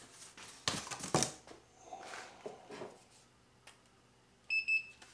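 A cardboard box is handled and set aside with a few brief scraping rustles. About four and a half seconds in, a handheld infrared thermometer gives a short, high electronic beep as a reading is taken.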